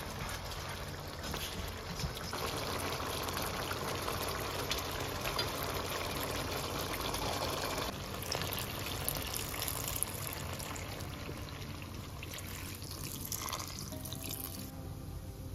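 Chicken wings frying and sizzling in a wok, with a spatula stirring and scraping them in the first half. Later, Coke is poured into the hot pan and fizzes.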